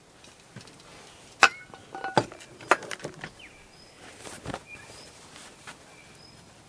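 Scattered sharp clicks and knocks of tools and metal parts being handled while working on a chainsaw, the loudest about a second and a half in. Faint short bird chirps sound in the background from about halfway.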